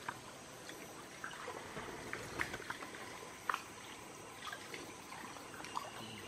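Creek water splashing and trickling as men wade waist-deep and handle a fishing net, with a few sharper splashes around the middle.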